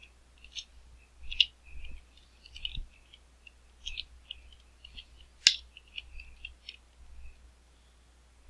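Computer keyboard being typed on: irregular soft key clicks, with one sharper, louder click about halfway through.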